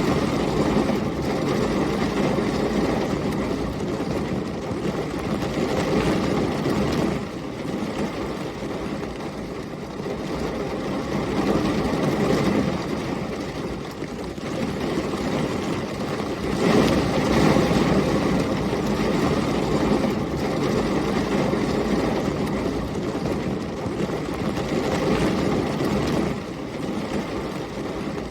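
Heavy rain and storm wind: a dense, even wash of noise with a low rumble, swelling and easing several times, loudest about 17 seconds in.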